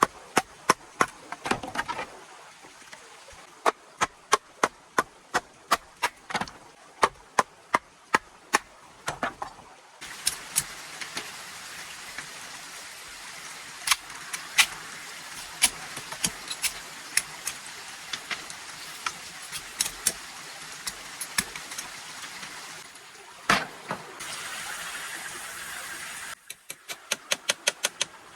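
Repeated chopping strikes of a blade into wood, at first quick and then about one and a half a second. A stretch of steady hiss with scattered clicks follows, and a run of fast strikes comes back near the end.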